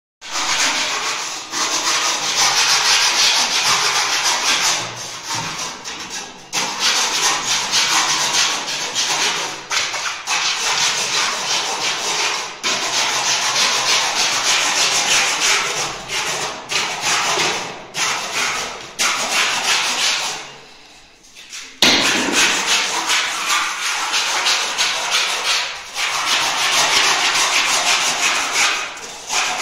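A long-handled scraper or sanding head worked back and forth over a plaster wall to prepare it for paint. It makes a continuous rasping scrape in quick repeated strokes, which fades briefly about two-thirds of the way through and then starts again abruptly.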